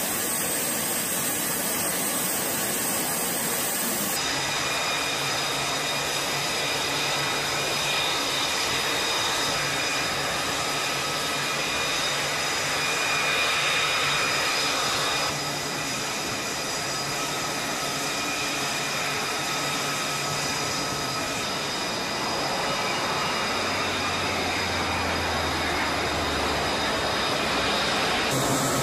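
Steady mechanical drone with a rushing noise and several high, steady whines. The sound shifts slightly a few seconds in and again about halfway through.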